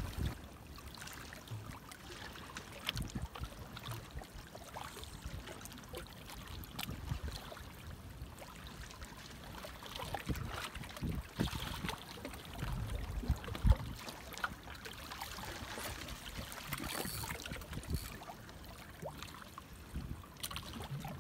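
Small choppy waves lapping and trickling against the jetty, with scattered clicks and irregular low thumps, the loudest about two thirds of the way through.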